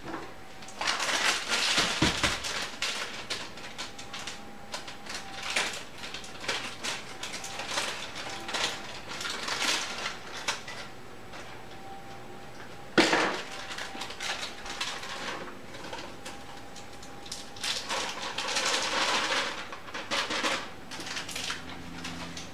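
Brownie-mix packaging being opened and handled at a kitchen counter: irregular rustling and crinkling with scattered clicks, and one sharp knock about thirteen seconds in.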